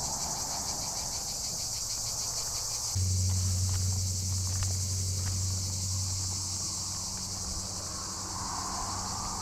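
A steady high-pitched chorus of insects shrilling in dry scrubland, with a fine pulsing rhythm. About three seconds in, a low steady hum starts suddenly underneath it.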